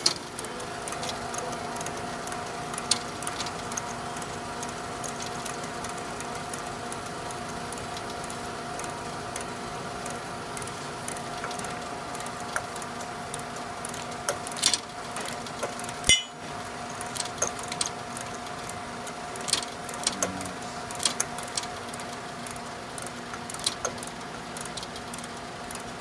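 Ratcheting service valve wrench clicking in short runs as the king valve on a refrigeration receiver is front-seated, over the steady hum of the running refrigeration compressor. Front-seating the king valve blocks the liquid line so the compressor pumps the refrigerant out into a recovery tank.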